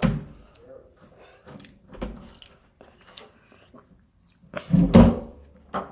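Close-up biting and chewing of a S'mores Pop-Tart: scattered small crunches and mouth clicks, with a louder burst about five seconds in.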